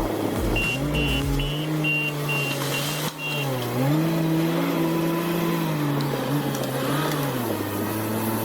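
Bulldozer diesel engine revving up and down under load. A reversing alarm beeps rapidly for the first few seconds.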